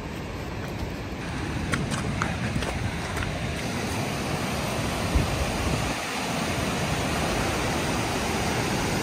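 Rushing river water, a steady noise that grows louder as the white water comes closer, with wind buffeting the microphone. A few crunching footsteps on gravel about two seconds in.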